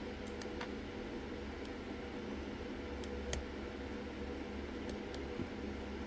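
A few scattered faint small clicks of a lock pick working the pins of a lock cylinder under tension, the sharpest just past the middle, over a steady low hum.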